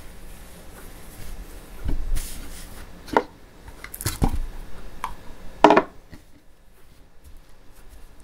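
A kitchen knife striking a cutting board several times at uneven intervals, with quiet handling between the strikes.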